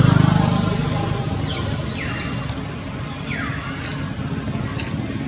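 A motor vehicle passing close and fading away, then three falling whistled calls about a second apart over a steady low hum.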